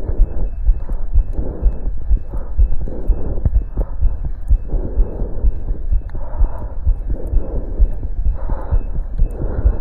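A human heartbeat heard through a stethoscope on the chest during exercise, a fast run of deep thumps. Bursts of rushing noise rise over it about once a second.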